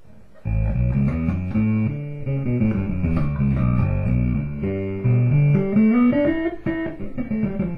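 Five-string jazz bass played through an 8 Bit Duck bit-crusher pedal and bass amp: a run of plucked notes starts about half a second in and moves up and down, with a steady high tone sounding under the notes.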